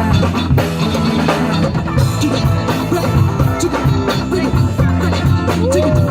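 Band music with a drum kit keeping a steady beat over a stepping bass line.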